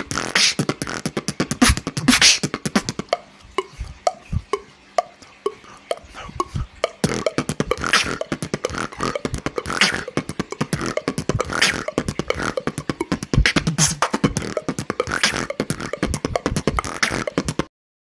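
Human beatboxing into a handheld microphone: a fast, dense beat of sharp percussive mouth sounds. About three seconds in it drops to a sparser, quieter stretch of short pitched notes, the full beat returns around seven seconds in, and it cuts off suddenly near the end.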